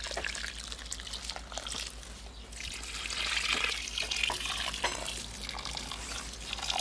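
Water pouring in a stream from a plastic watering can's spout onto soil and petunia plants in a flowerpot, splashing and trickling, heaviest a few seconds in.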